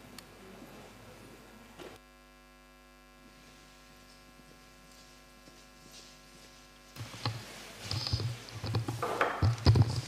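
Steady electrical hum from the hall's sound system. About seven seconds in, a run of irregular thumps and rustles: a microphone being handled as it is passed to a member of the audience.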